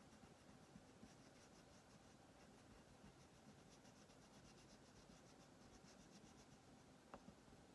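Wax crayon scribbling on paper in quick, faint, rhythmic back-and-forth strokes, with one small click about seven seconds in.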